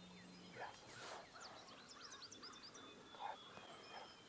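Near-quiet woods and field with small songbirds chirping and a faint, distant wild turkey calling, heard a couple of times.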